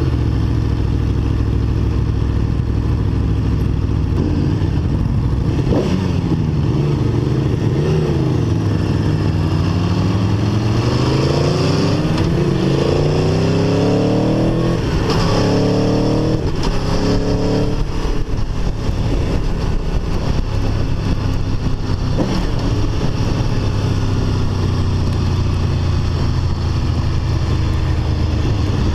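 Aprilia Tuono V4 1100 RR's 65-degree V4 engine through its stock exhaust, heard from the rider's seat. A brief rev blip comes early, then the revs climb through several upshifts over the middle of the stretch, and the engine settles to a steady cruise for the rest.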